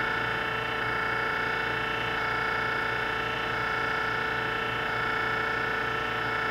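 Giddings & Lewis Winslowmatic drill point grinder running its automatic grinding cycle with no drill loaded: the grinding wheel motor gives a steady hum and whine, and the low hum pulses in a regular rhythm as the cam-driven workhead moves.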